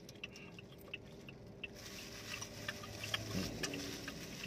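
Eating sounds: scattered small clicks and crinkles of fingers picking mango pieces out of thin plastic bags, with chewing, over a low steady hum inside the car.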